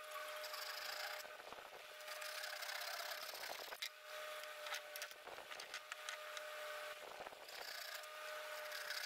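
Hand saw cutting through a plywood board in repeated back-and-forth strokes.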